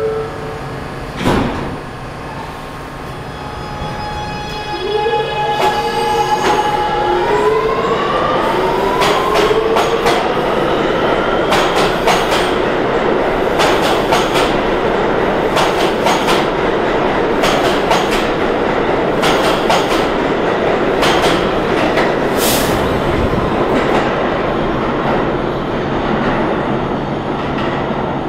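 An R211A New York subway train pulls out of the station. A thump comes just after the start. Its traction motors then whine in several tones that rise in pitch as it accelerates, over a loud rumble and wheels clacking across rail joints. The sound fades near the end as the train leaves.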